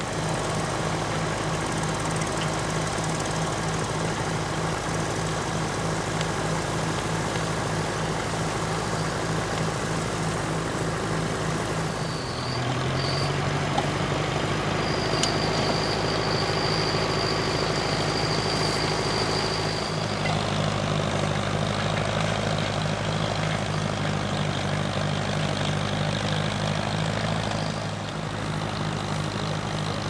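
Small vintage tractor engine running steadily under load while pulling a mounted plough. Its pitch steps up slightly about twelve seconds in.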